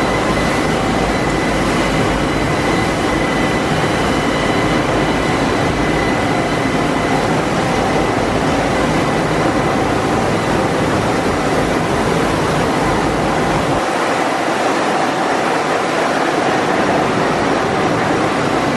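Steady running din of a PE extrusion coating production line: constant machinery noise with a few high steady whining tones. The deep rumble underneath drops away about three-quarters of the way through.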